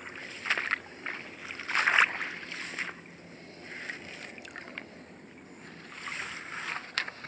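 Shallow water splashing and sloshing as someone wades through flooded grass and handles a PVC-pipe eel trap lying in the water. There are several splashes, the loudest about two seconds in and another cluster near the end, over a steady high insect trill.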